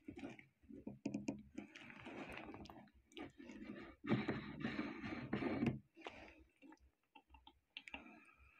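Handling noises of a wristwatch on a bench: small clicks and taps of the metal case, and stretches of cloth rubbing against it. The loudest rubbing lasts a couple of seconds, starting about four seconds in.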